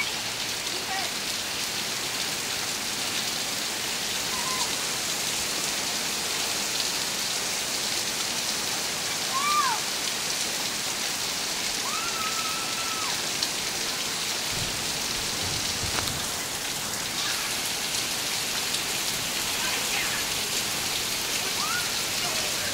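Heavy rain falling steadily on lawn and pavement, an even hiss, with a few short, high calls from children playing in it.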